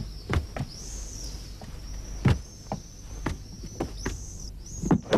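About half a dozen soft, irregular knocks and thuds as people move about and handle objects at a wooden table, the loudest a little over two seconds in. A faint steady high-pitched whine runs underneath.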